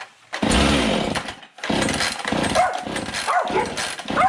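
Husqvarna 450 Rancher two-stroke chainsaw being pull-started on full choke: the cord is pulled and the engine fires, running roughly for about a second, then again from about two seconds in, the first firing on choke before the choke is pushed off.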